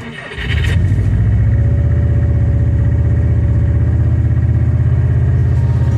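Diesel engine catching about half a second in and then idling steadily with a fast, even pulse.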